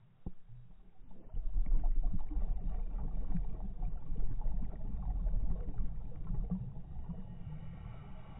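Underwater noise: a low rumble with scattered crackling that comes in about a second in and fades near the end, after a single sharp click at the start.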